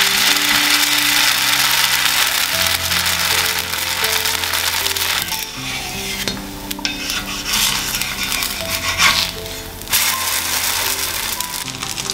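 Batter pancake sizzling on an iron griddle, the hiss fading over the seconds, with a few short scrapes of a wooden spatula near the end, over background music with steady notes.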